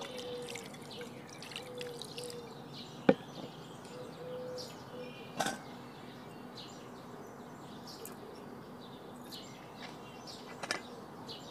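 Water poured from a plastic mug onto soft chhena curds in a cloth-lined strainer, a light splashing trickle in the first couple of seconds as the curds are rinsed of vinegar. After that a low, steady outdoor background with three brief knocks, the loudest about three seconds in.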